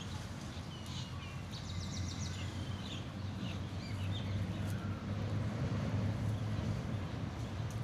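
Outdoor ambience: a steady low rumble with short high bird chirps and a quick trill scattered through the first half.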